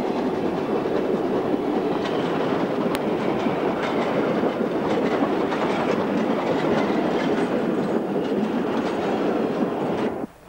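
Heritage passenger carriages of a steam-hauled train rolling past close by, their wheels rumbling and clicking over the rail joints. The sound cuts off suddenly near the end.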